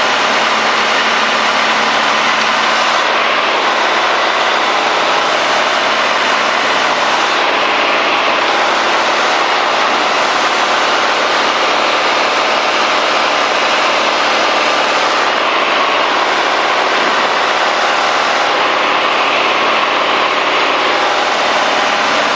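Cessna 210D's six-cylinder engine and propeller running steadily, mixed with rushing airflow, heard inside the cabin in flight with the landing gear extended on the approach.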